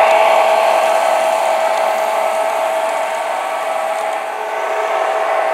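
Model train locomotives running around the track: a steady whirring hum from their motors and wheels on the rails.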